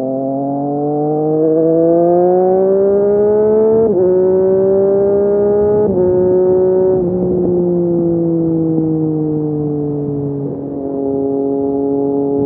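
Triumph Street Triple RS three-cylinder engine through an SC Project S1 slip-on exhaust, pulling hard with rising revs, then two quick upshifts, each dropping the pitch, before the rider eases off and the revs sink slowly as the bike slows.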